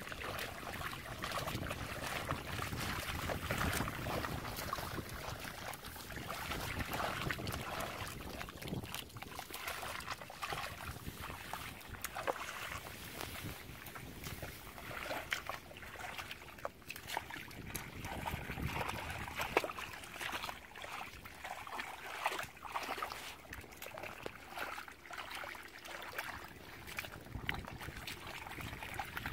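Shallow muddy water sloshing and mud squelching as hands grope and dig through it, with many small splashes and clicks.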